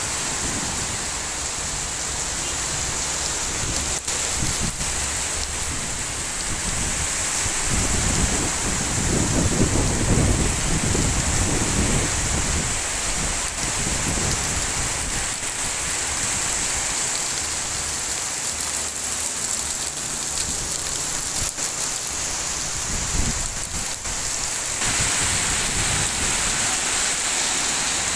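Heavy rain falling steadily with strong wind. A deep rumble swells and fades about ten seconds in, and the rain hiss grows brighter near the end.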